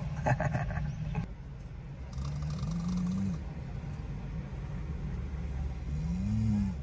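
Vehicle engine idling, heard from inside the cabin as a steady low rumble. Handling noise in the first second, and two short low hums that rise and fall, one near the middle and one near the end.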